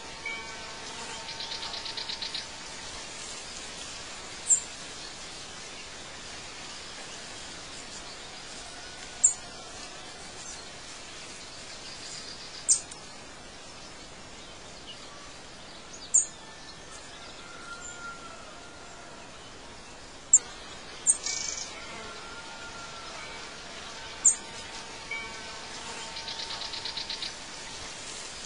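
Birdsong ambience over a steady outdoor hiss. Sharp high chirps, the loudest sounds here, come every four seconds or so, with a fast trill near the start and again near the end and a few soft whistles between.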